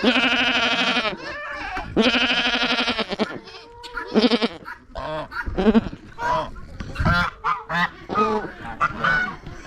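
Farm goats bleating, two long wavering calls in the first three seconds, followed by a run of short honking calls from farm fowl.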